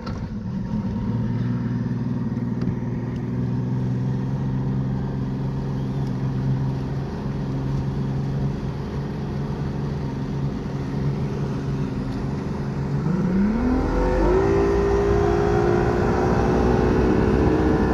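Bass boat's outboard motor running at low speed with a steady low hum, then throttled up about thirteen seconds in: its pitch climbs quickly and then holds higher, still rising slowly, as the boat gets up to speed.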